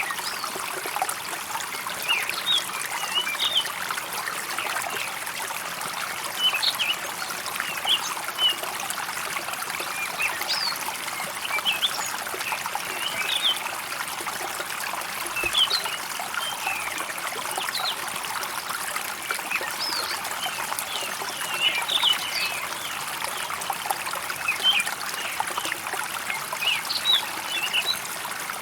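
Water trickling steadily in a stream, with small birds chirping in short calls many times over it.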